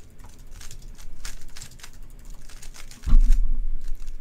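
Keyboard typing: light, irregular clicks. About three seconds in, a heavy low thump rumbles for about a second and is the loudest sound.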